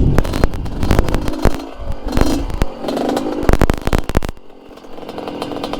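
Two-stroke single-cylinder engine of a Yamaha DT trail bike fitted with an RX-King engine, revving up and down under load amid repeated knocks and clatter. About four and a half seconds in it drops to a quieter, steadier running note.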